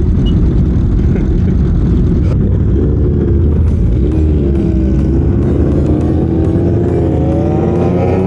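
Motorcycle engines running with a heavy low rumble; from about four seconds in, one engine rises steadily in pitch as it accelerates.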